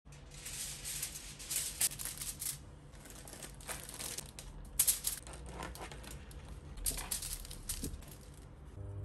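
Aluminium foil crinkling and rustling as it is handled and spread out on a kitchen counter, in irregular rustles.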